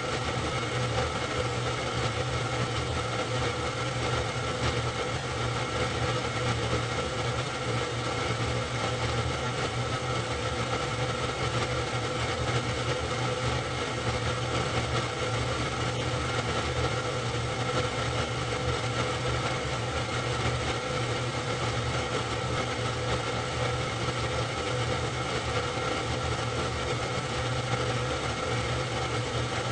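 Super 8 film projector running steadily: a constant mechanical whirr with a steady hum and hiss, unchanging throughout.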